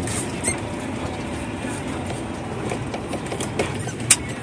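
Scania truck running steadily in the cab while driving over a rough, rutted dirt track, with a few sharp rattles and knocks from the cab. The loudest knock comes near the end.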